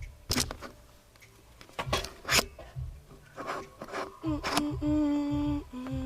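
A few sharp clicks and knocks, then, about four seconds in, a hip-hop beat starts playing with a low rhythmic kick and a long held note at a steady pitch that steps down once near the end.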